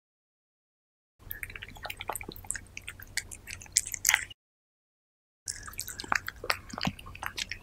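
A cat eating soft wet meat up close: quick wet smacking and licking clicks. They come in two stretches of a few seconds each, starting about a second in and again past the middle, with dead silence before and between.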